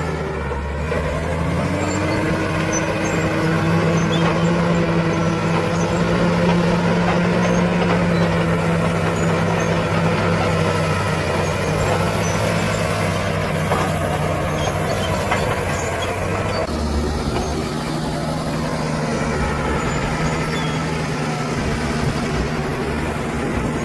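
Bulldozer's diesel engine working steadily under load. Its note rises a little about two seconds in and changes character again about seventeen seconds in, as the load or throttle shifts.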